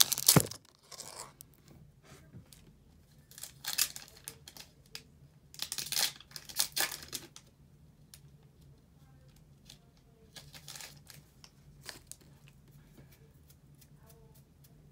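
Foil booster pack wrapper being torn open and crinkled in a few short bursts of tearing, with quieter rustling between.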